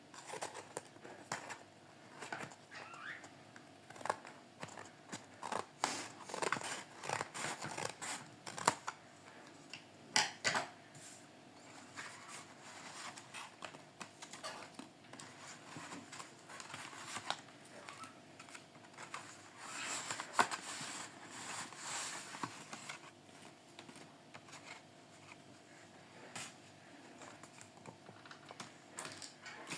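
Hands handling paper: irregular rustling, crinkling and light taps and clicks, as a paper-craft blind bag is opened and its paper contents are handled. It is busiest about a third of the way in and again about two thirds of the way in.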